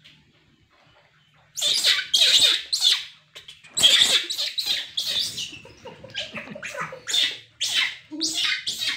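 Baby macaque screaming and crying in a rapid run of short, high-pitched cries that start about a second and a half in, the angry distress cries of an infant monkey.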